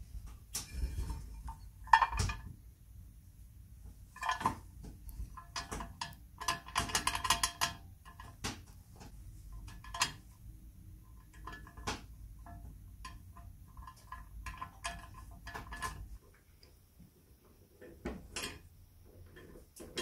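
Painted cast-iron parts of a restored antique crepe iron clinking and knocking against each other as they are handled and fitted together by hand: a string of sharp metallic clinks with short ringing, the loudest about two seconds in and a busy run of them a few seconds later. After about sixteen seconds only a few quieter clicks remain.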